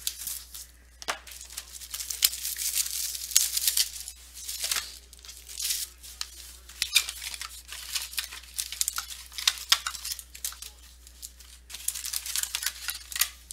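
Plastic and foil wrapping on a box of trading cards being torn open and crinkled by hand, in irregular crackling bursts throughout.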